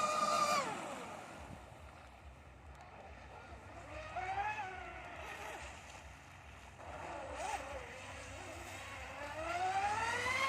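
Twin 3660 3300 kV brushless motors of an RC catamaran speedboat whining at speed. The whine drops away about a second in, comes back in short throttle swoops in the middle, and rises in pitch and loudness near the end as the boat speeds up again.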